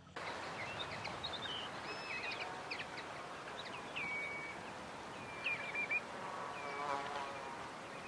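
Outdoor ambience: a steady hiss with many short, high chirps and whistles of birds calling, and a brief lower, wavering call about seven seconds in.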